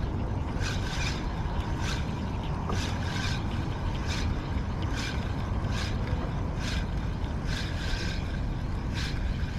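Kayak under way on open water: short swishing strokes repeating about once or twice a second, over a steady low rumble.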